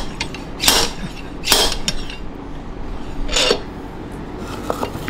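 Metal-on-metal clicking and clinking in four short bursts, then fainter clicks near the end, as a wrench turns the forcing screw of a large bearing puller. The puller is drawing a tight press-fit bearing out of an NSG370 transmission's rear housing.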